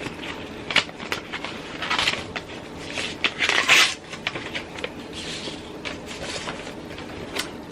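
A greeting-card envelope being opened by hand: paper rustling and tearing in short bursts, the longest about three and a half seconds in, with a few sharp clicks.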